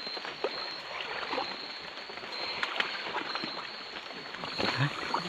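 Footsteps and bodies brushing through forest undergrowth at night: scattered small rustles and twig snaps over a steady hiss of night forest ambience, with a thin, steady high tone running through it.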